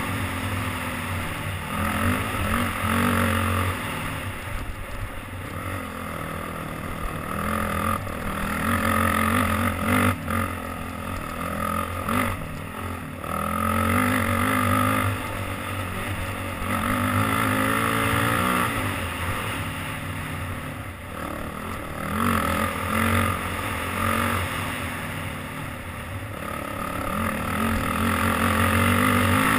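Dirt bike engine working hard on a trail ride, its pitch climbing and dropping again and again as the throttle is opened and eased off, with wind rushing over a helmet-mounted microphone.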